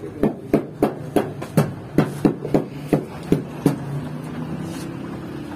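A quick run of about a dozen sharp knocks, roughly three a second, that stops a little before four seconds in.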